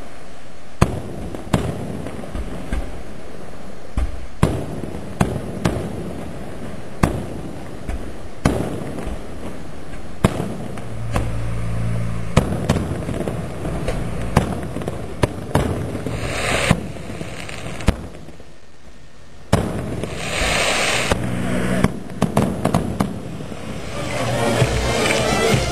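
Aerial firework shells exploding overhead in an irregular series of sharp bangs, roughly one a second, with a short lull about two-thirds of the way through.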